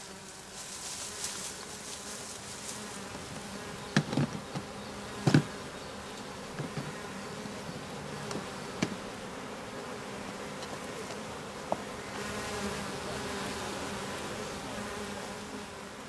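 A swarm of honeybees buzzing in a steady hum, a little louder near the end. A few sharp knocks stand out, the loudest about four and five seconds in.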